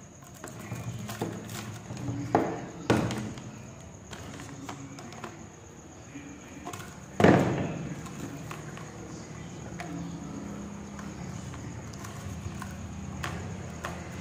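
Knocks of small objects handled on a wooden tabletop, two sharp ones a few seconds apart and then one much louder thud that rings on briefly, over a low steady background hum.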